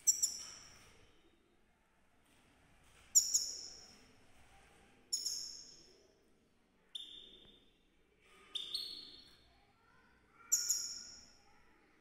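Caged European goldfinch giving six short, high calls, one every second and a half to two seconds, each ringing out for about a second.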